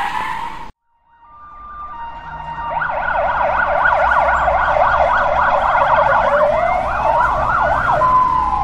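A tyre squeal cuts off abruptly in the first second. After a brief silence, emergency-vehicle sirens fade in: a fast yelp rising and falling several times a second, joined near the end by a slower wail.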